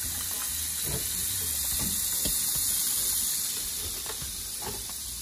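Kitchen tap running a steady stream of water onto beef ribs in a stainless steel bowl, with a few light knocks over the rushing water.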